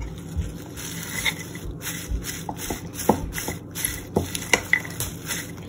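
Salad being tossed with a fork in a bowl: leaves rustling and squelching in a thick dressing, with the fork clicking against the bowl several times in the second half.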